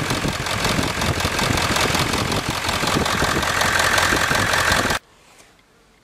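Ford 7.3 Power Stroke V8 turbodiesel idling with a dense clatter while a homemade switch box cuts its injectors one at a time to find a weak cylinder; number 5 seems weak. The sound cuts off suddenly about five seconds in, leaving faint room tone.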